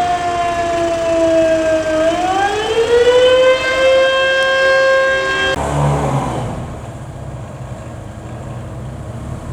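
Fire-brigade alarm siren: a motor siren's wail sinking slowly in pitch, then spinning back up about two seconds in and holding a steady tone until it cuts off abruptly a little past halfway. After that, a low vehicle engine running, with wind noise.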